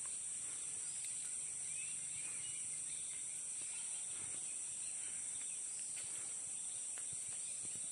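Steady high-pitched drone of a forest insect chorus, unbroken throughout.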